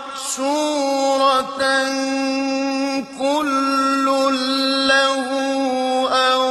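A man reciting the Quran in Arabic in a slow, melodic style, holding long steady notes with a brief pause about three seconds in.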